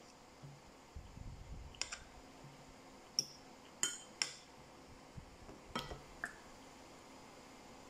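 Metal spoon and fork clinking against a ceramic plate and bowl while eating, about six sharp clinks at irregular intervals.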